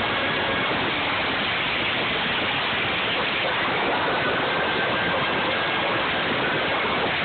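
Traxxas T-Maxx nitro RC truck running along pavement, heard from a phone strapped to the truck: a loud, steady rush of wind, tyre and vibration noise with a faint high engine whine that wavers slightly in pitch.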